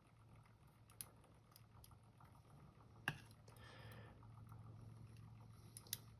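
Mostly near silence with a faint low hum, broken by three light clicks of small pin tumbler lock pins being handled while the lock is taken apart: about a second in, about three seconds in, and near the end.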